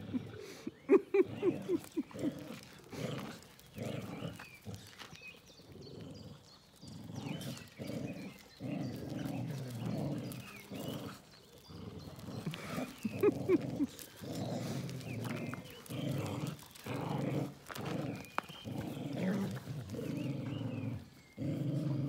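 Two dogs, a German Shepherd and a black shaggy dog, growling in play while tugging on a rope toy. There are runs of quick, higher-pitched growls near the start and again about halfway through, and long stretches of low growling in the second half.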